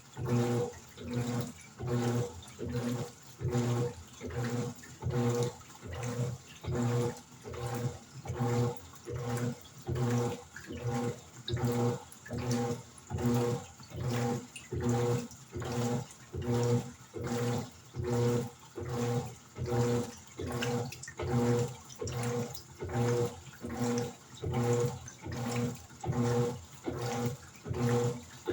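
Electrolux LED14 top-loading washing machine agitating a load in water: the motor turns the agitator back and forth, giving a rhythmic hum and swish of about one stroke a second.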